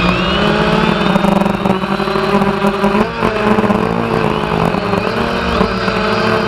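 Quadcopter drone's electric motors and propellers buzzing steadily in flight, heard from the drone's own onboard camera; the pitch wavers slightly as the motors change speed to turn and tilt.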